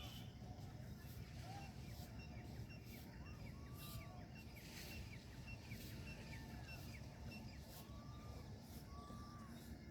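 Many birds chirping and calling at once, short arched calls repeating throughout over a steady low background rumble.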